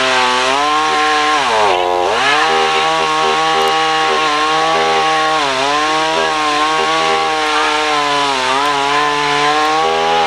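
Chainsaw running at high speed while cutting wood, its pitch dropping sharply under load about two seconds in and climbing back, then holding with small wavers.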